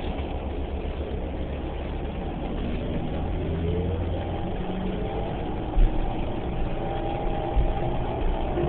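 Cabin sound of a 2011 New Flyer Xcelsior XDE40 diesel-electric hybrid bus under way: a steady low rumble with a whine that rises in pitch about three seconds in and then holds, as the hybrid drive picks up speed. A single thump sounds a little before the end.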